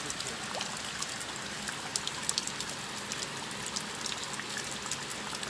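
Steady rain falling, many small sharp drop ticks over an even hiss.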